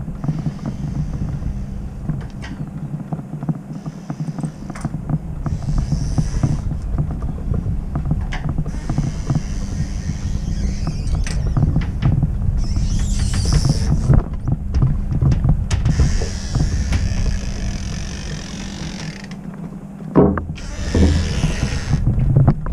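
Low rumble and constant rattling clicks from a handlebar-mounted action camera rolling along a paved quay, with wind buffeting the microphone. The rattle gets louder for a moment near the end.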